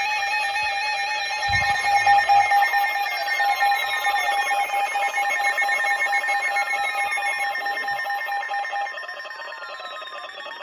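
Electronic emergency-alert attention tone: a steady warbling tone with a second tone and repeated falling sweeps over it. It drops to a lower level about nine seconds in.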